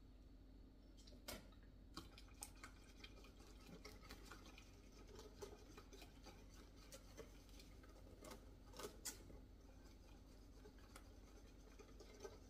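Faint, irregular scraping and tapping of a wooden spatula stirring thin caramel sauce in a stainless steel saucepan.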